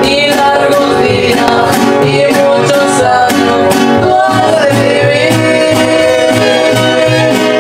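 Music with guitars over a steady beat of about two strokes a second, and a wavering melody line over it.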